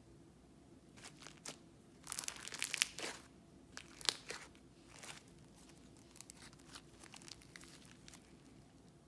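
Blue textured slime squeezed and pressed by hand, crackling and crinkling. The densest run of crackles comes about two seconds in; sparser crackles follow until near the end.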